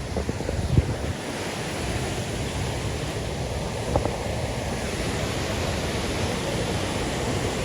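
Steady rushing of a waterfall's falling water, with a couple of brief knocks, the loudest about a second in.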